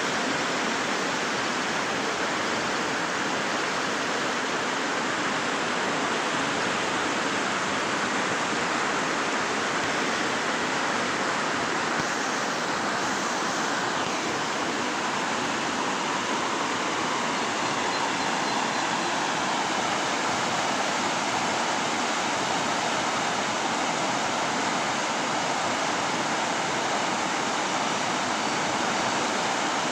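A river in flood, its muddy water rushing steadily over rocks and gravel bars.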